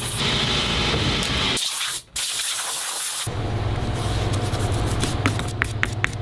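A spray hissing steadily over the low hum of workshop machinery. A run of sharp clicks comes near the end.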